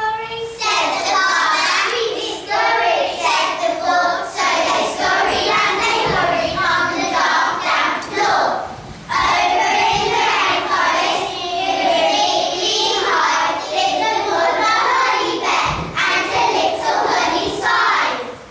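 A group of young children singing a song together, with a short break about halfway through.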